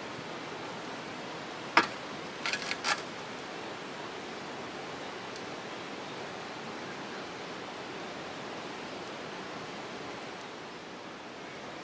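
Steady rushing of a river in the valley below, an even outdoor hiss. About two seconds in there is one sharp click, followed by a quick run of three or four short, high chirps.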